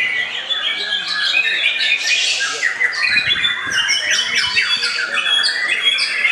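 White-rumped shamas singing, a dense, unbroken stream of fast rising and falling whistles, trills and harsher chattering notes overlapping one another.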